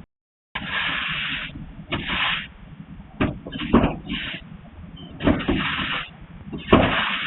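Irregular scraping strokes from building work, each under a second, with sharp knocks and a low rumble underneath.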